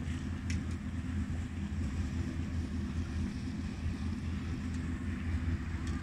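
Motorboat engine running with a steady low rumble as the boat cruises past, with a couple of faint clicks.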